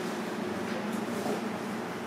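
Steady room tone of a kitchen: a low hum over even background noise, with no distinct event.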